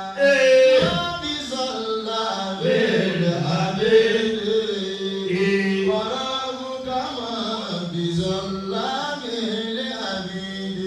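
A man chanting in a long, wavering melodic voice, Yoruba-style praise chanting with held notes that slide up and down.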